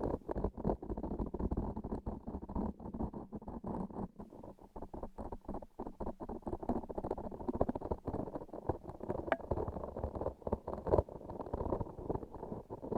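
Close-miked handling of a transparent sticky toy: dense, irregular sticky crackles and soft pops as it is pressed and pulled, muffled and low in tone.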